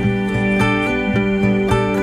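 Background music: an acoustic guitar track with evenly paced plucked notes over a repeating bass line.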